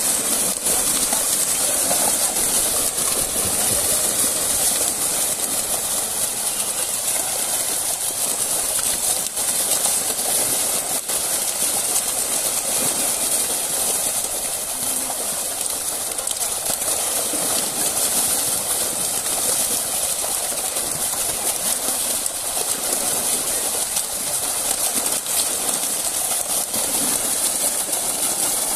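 Many fish thrashing in a crowded fishing net, churning the water into a dense, continuous splashing that stays steady throughout.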